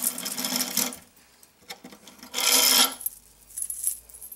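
Grandfather clock weight chains rattling and jangling as they slide through the seat board while the movement is pulled out of the case. There are two runs of jangling, one at the start and a shorter one about two and a half seconds in, followed by a few light clinks.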